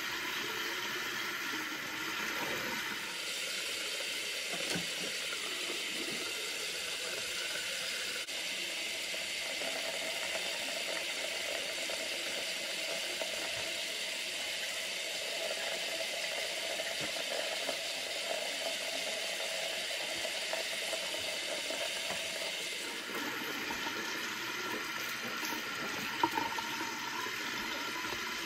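Bathroom sink tap running steadily, a constant rush of water.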